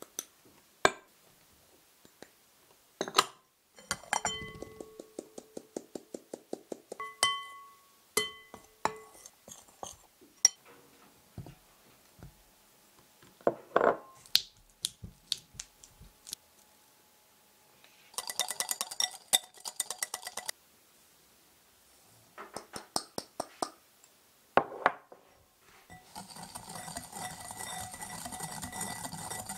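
Kitchen tools knocking and clinking against a glass mixing bowl in a run of separate sharp taps, several of them leaving the bowl ringing, with a fast rattling patch about two-thirds of the way through. In the last few seconds a whisk scrapes steadily round the bowl, creaming soft butter with granulated sugar.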